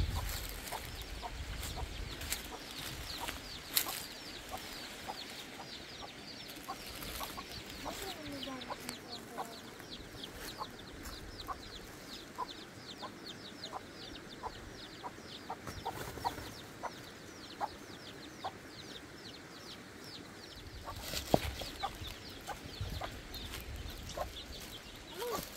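Birds clucking and chirping in fast repeated calls, with scattered knocks and rustles of stones and footsteps on dry leaves.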